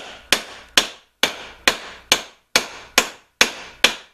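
A hammer striking a wooden wedge into the eye of an oak axe handle to fix the axe head: ten sharp, even blows, a little over two a second, each with a short ring.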